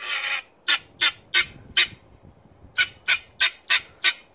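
Helmeted guineafowl calling: a drawn-out harsh call ends just after the start, then a string of short, sharp squawks, four in a row about a second in and a quicker run of six near the end.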